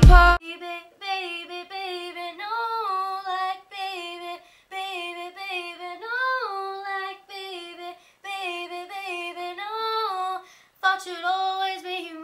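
A single high voice singing a pop melody unaccompanied, in short phrases of held notes with brief pauses between them. The backing music cuts off abruptly just as it begins.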